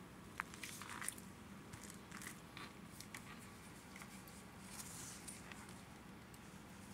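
Plastic spoon pressing and scraping into a packed block of powdered starch, giving faint crunching and crackling with a couple of sharper clicks in the first second.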